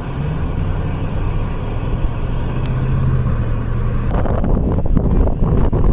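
A motor vehicle's engine running with a steady low hum. About four seconds in, a louder rough rushing noise joins it.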